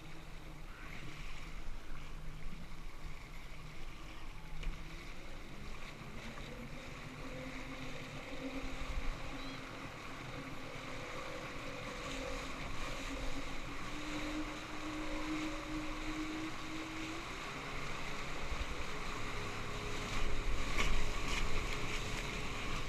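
Towing motorboat's engine speeding up, its pitch rising in several steps, over the rush of water and wind as the towed raft picks up speed.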